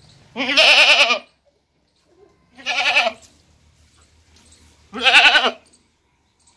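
A goat bleating three times, each call lasting half a second to a second, with a wavering, quavering pitch. The first call is the longest.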